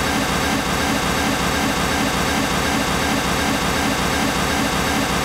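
Pink noise test signal from the Spatial Audio Calibration Toolkit's Tonal Balance test: a steady, even hiss across all pitches. It is played to the speakers to judge whether the system sounds evenly balanced, with no part of the range standing out.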